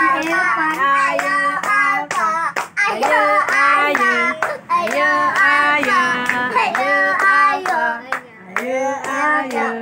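Children singing a chant together while clapping their hands to a steady beat, a few claps a second.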